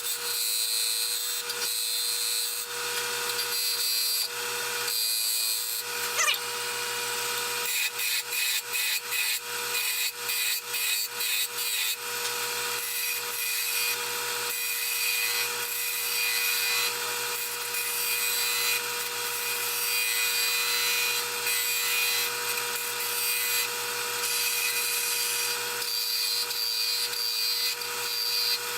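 Wood lathe running with a steady hum while a turning tool cuts the spinning cedar blank, a continuous hissing shave. For a few seconds in the middle the tool is touched on and off the wood in a string of short cuts.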